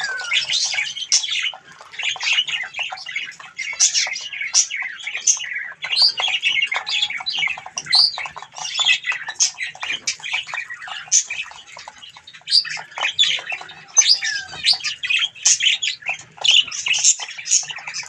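Mixed aviary flock of zebra finches and budgerigars calling continuously: dense, overlapping short chirps and squawks.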